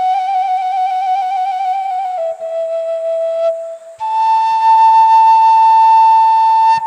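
Romanian caval playing a slow doina lament: a wavering, ornamented note steps down to a lower held note, then after a short break a louder, higher note is held steady to the end.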